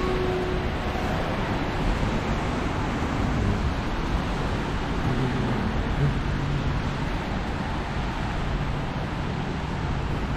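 Steady hiss of rain and traffic on wet city streets, with a low vehicle engine hum joining about halfway through.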